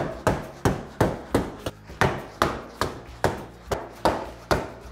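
A Fast Flash hammer, a leather sock filled with granular material, striking self-adhesive flashing onto flat profile roof tiles: a steady run of dull thuds, about two and a half a second, dressing the flashing down onto the tiles.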